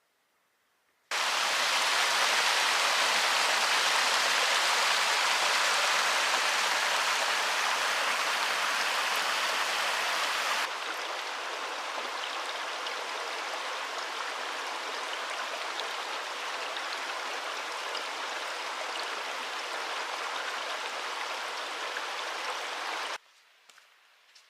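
Steady rush of a running stream. It cuts in abruptly about a second in, steps down to a quieter rush about ten seconds in, and cuts off abruptly near the end.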